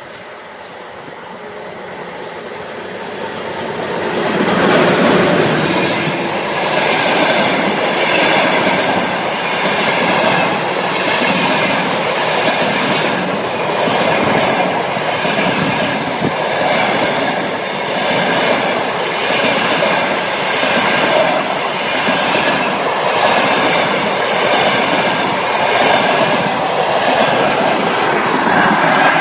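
Passenger train of sleeping coaches hauled by a VL40U electric locomotive, approaching and passing close by. The noise builds over the first four seconds as the locomotive arrives, then the coaches roll past with a steady loud rush and a rhythmic clickety-clack of wheels over the rail joints.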